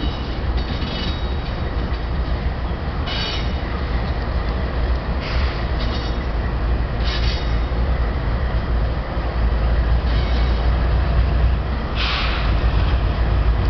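Diesel locomotives running light (no cars behind them) pass close by: a steady deep engine and rail rumble that grows a little louder toward the end. A few times there are short bursts of higher wheel squeal or screech, the strongest near the end.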